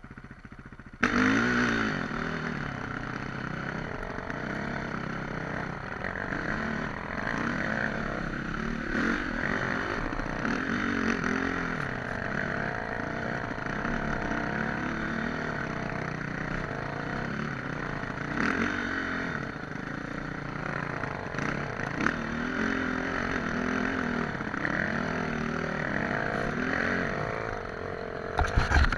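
Off-road motorcycle engine running under way, its pitch repeatedly rising and falling with the throttle. It starts suddenly about a second in, after a quieter moment.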